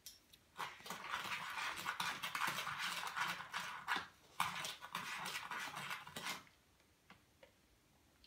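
Metal teaspoon stirring and scraping sherbet powder in a small plastic bowl: a gritty, scratchy rasp made of many quick clicks, pausing briefly about four seconds in, then stopping about six seconds in.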